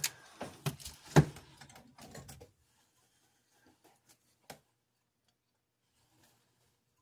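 Small clicks and knocks of tools and parts being handled on a workbench, a quick cluster with the sharpest about a second in, then one lone click a few seconds later.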